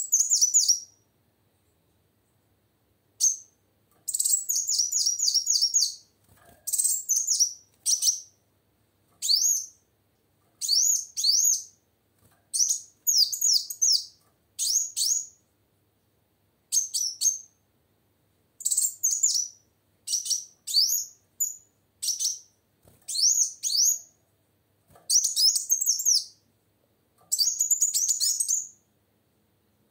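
Female kolibri wulung sunbird singing in repeated bursts of rapid high chirps. Each burst lasts about a second or two, with short pauses between them.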